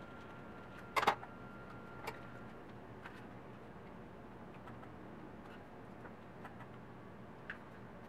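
Quiet handling of a folding knife cutting a soft silicone phone sleeve on a tabletop: a cluster of sharp clicks about a second in, another click a second later, then a few faint ticks.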